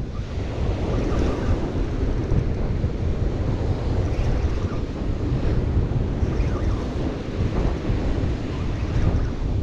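Wind buffeting the microphone over the steady wash of surf breaking on a pebbly beach.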